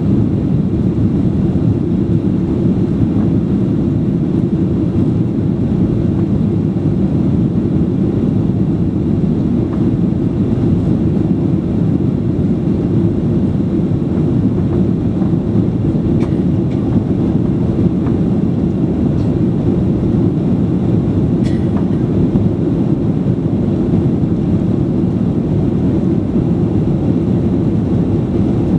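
Steady cabin roar of a Boeing 737-800 in flight after take-off: the CFM56 engines and rushing airflow heard from inside the passenger cabin as a constant low drone.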